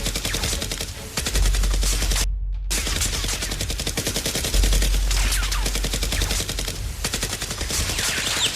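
Rapid automatic gunfire sound effects, a dense stream of shots over a deep low rumble, dubbed over a Nerf-gun battle. The sound cuts out completely for a moment a little over two seconds in.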